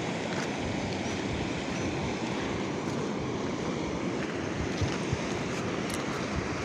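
Steady low rushing noise of wind buffeting the microphone outdoors.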